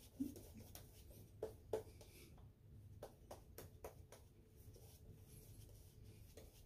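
Faint, short scratching strokes of a Karve brass double-edge safety razor cutting beard stubble, a run of about a dozen quick passes.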